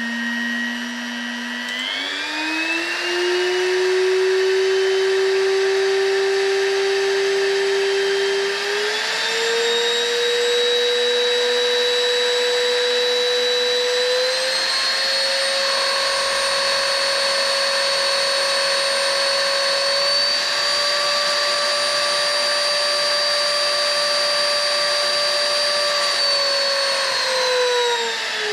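Katsu trim router's electric motor running without cutting, stepped up through its speed settings: its whine jumps higher in pitch several times with little change in loudness, then winds down near the end as it is switched off.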